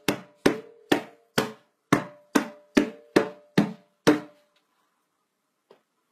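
A drum slapped by hand in a steady beat, about two hits a second, each hit ringing briefly with a low hollow tone. The beating stops about four seconds in, with one faint tap near the end.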